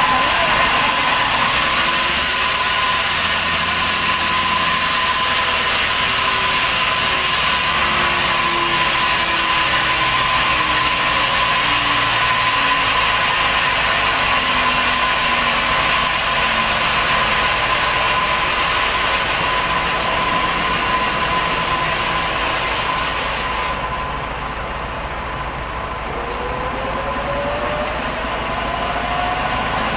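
Sawmill machinery running steadily, a constant loud hiss with a steady whine. A lower tone slowly falls over the first half, and near the end another tone rises as the machine speeds up. The hiss briefly thins about three-quarters of the way through.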